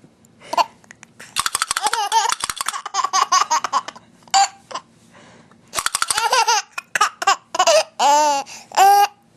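A young child laughing in repeated bursts of quick laughs, with short single sounds between them and two high squealing laughs near the end.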